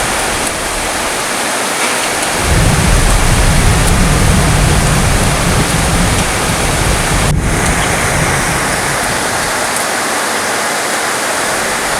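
Heavy rain falling steadily, with a low rumble of distant thunder that swells about two and a half seconds in and dies away about five seconds later.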